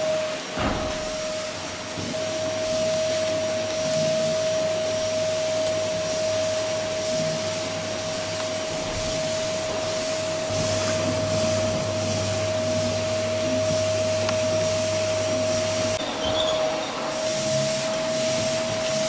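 Canister vacuum cleaner running steadily, a constant motor whine over rushing airflow, as its floor nozzle is pushed back and forth over carpet.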